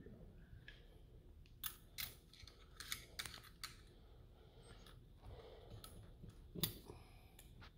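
Faint, scattered light clicks and clinks of small metal parts being handled and fitted into a front differential housing during reassembly. The loudest click comes near the end.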